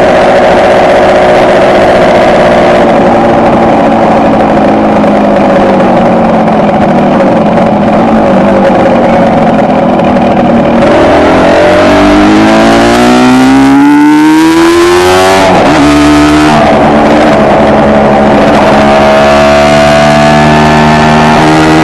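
Kawasaki KR250's two-stroke tandem twin engine, heard from the bike while riding: steady cruising revs, then the revs climb from about halfway, break briefly at a gear change and climb again near the end.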